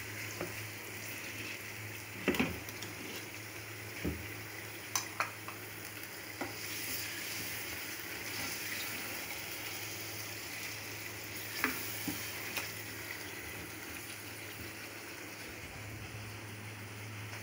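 Chicken, onions and green chillies sizzling in a frying pan while a spatula stirs them, knocking sharply against the pan now and then, loudest about two seconds in. A steady low hum runs underneath.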